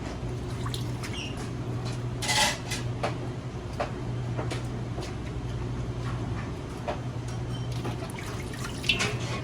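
Radish-slicing food machine running with a steady low hum, with scattered knocks and two louder noisy bursts, one about two seconds in and one near the end.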